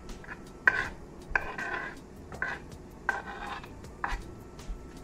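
A cooking utensil knocking and scraping against a frying pan, irregular ringing clinks about once a second, as chestnut mushrooms are stirred into the hot butter and pan drippings.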